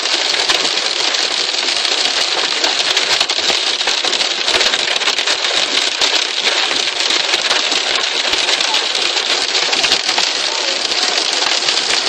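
Hail and heavy rain drumming on a car's roof and windscreen, heard from inside the car: a loud, steady clatter of countless small impacts.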